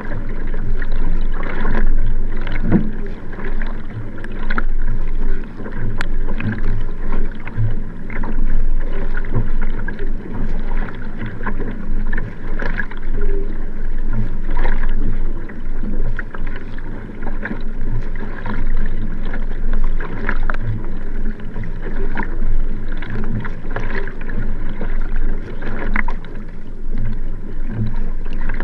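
Sprint kayak under racing pace: paddle blades catching and pulling through the water in an even rhythm of strokes, about one a second or a little faster, over a steady rush of water along the hull.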